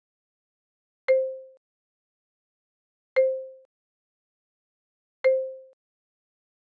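Soft sound effect marking each flash-card change: a brief pitched tone with a click at its start that fades within half a second. It plays three times, about two seconds apart.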